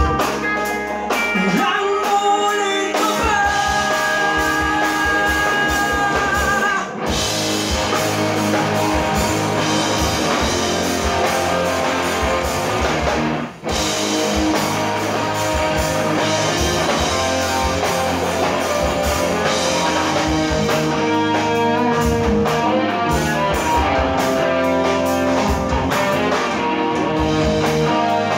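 Live rock band playing: electric guitars, bass and drum kit with a singer, loud and continuous. A high guitar note is held in the first few seconds, and the sound drops out for an instant about halfway through.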